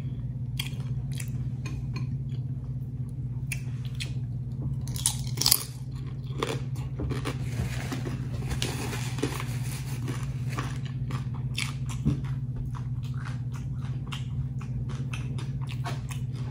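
Close-up crunching and chewing of seasoned fried tortilla chips loaded with a chicken dip: many short, sharp crunches, the loudest about five and a half seconds in. A steady low hum runs underneath.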